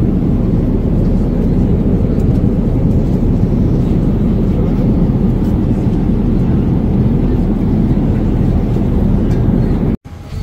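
Passenger jet airliner noise: a steady low rumble of engines and airflow, cut off abruptly near the end.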